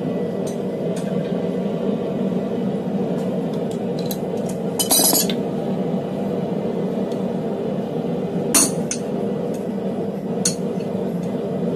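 Hammer striking a maker's-mark stamp held on a hot D2 steel bar on a steel block. There is a cluster of sharp metallic clinks about five seconds in, then two single strikes a couple of seconds apart later on, over a steady hum.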